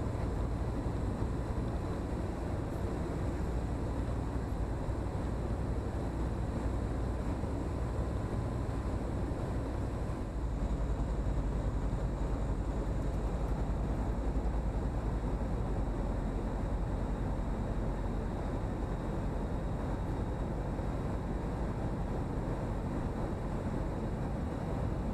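Cabin drone of the Comco Ikarus C42C microlight's engine and propeller in flight on approach, a steady low, noisy hum with the wind of flight. The level rises slightly about ten seconds in.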